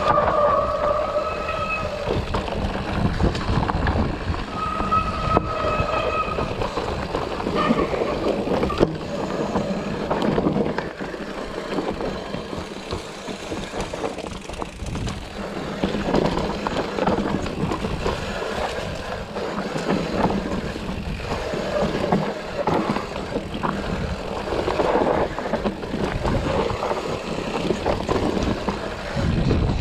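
Mountain bike rolling over a rough trail: steady tyre and wind noise with the frame rattling and knocking over bumps.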